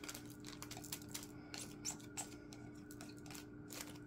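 Faint, irregular light clicks and ticks from small resin diamond-painting drills and their plastic bags being handled, over a steady low hum.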